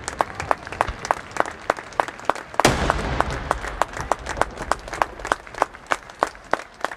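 Crowd applauding, with sharp separate claps several times a second. About two and a half seconds in comes one loud firework bang with a rumbling tail.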